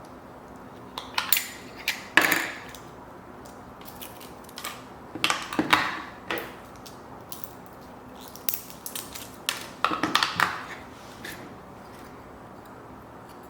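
A small packaged plastic digital timer being unpacked and handled: several clusters of sharp clicks, taps and crinkling, with quiet room tone between them.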